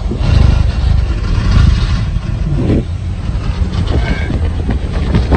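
Car driving, heard from inside the cabin: a loud, steady low rumble of road and wind noise, with a couple of brief higher sounds near the middle.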